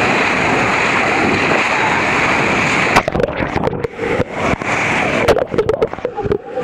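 Whitewater rapid rushing with a steady roar. About three seconds in it cuts off abruptly into irregular splashing and sloshing, with sharp knocks.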